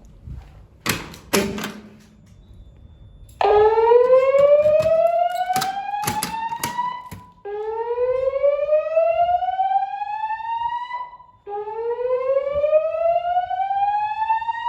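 Gentex speaker strobes on a Notifier NFS2-640 DVC voice evacuation system sounding the whoop alarm tone: three rising sweeps, each about three and a half seconds long, the first starting about three seconds in. A few sharp clicks come before and during the first sweep.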